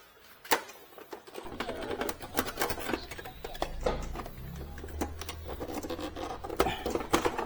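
Scattered clicks, taps and scraping of the plastic casing of an Epson L120 inkjet printer being handled and pried apart at its snap latches. A low hum sets in about a second and a half in.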